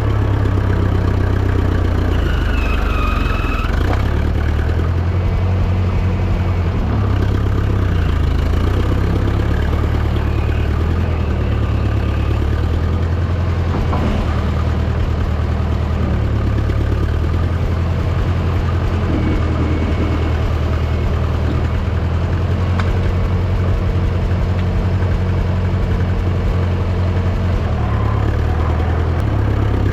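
International Harvester 300 Utility tractor's engine running steadily while its loader pushes dirt and stumps, the engine note stepping up and down now and then with the load.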